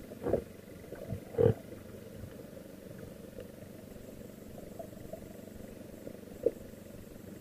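Muffled underwater noise picked up by a submerged camera: a steady low rumble of water with dull knocks about a third of a second in, at a second and a half (the loudest), and again after six seconds.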